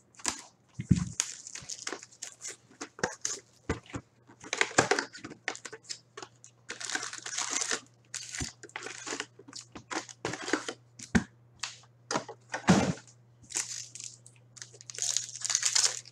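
Foil hockey card packs (2016-17 SP Authentic) being torn open and crumpled, and the cards handled. The result is an irregular run of crinkling, tearing and rustling with occasional sharp clicks, over a faint steady low hum.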